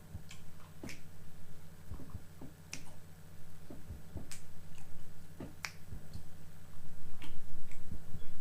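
Close-up chewing with wet mouth clicks and lip smacks, irregularly spaced, over a steady low hum.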